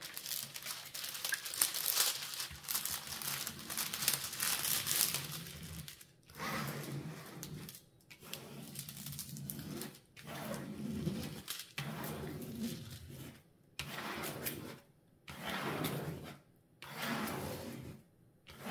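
A hand rubbing and sweeping over a glossy diamond painting canvas, pressing it flat to smooth out the creases. It is a continuous rustle for the first several seconds, then a run of separate strokes about a second long with short pauses between them.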